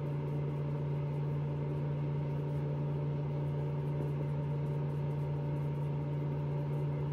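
Steady low mechanical hum, unchanging in pitch and level.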